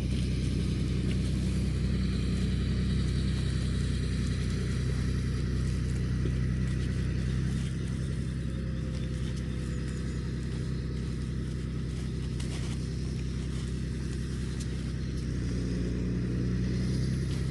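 Tractor engine running steadily, a low drone that holds at an even pitch.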